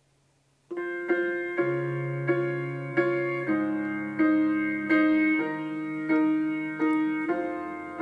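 Recorded piano music played through a PSYC Torre 2.1 Bluetooth tower speaker, starting about a second in after a short silence, with notes struck at an even, unhurried pace.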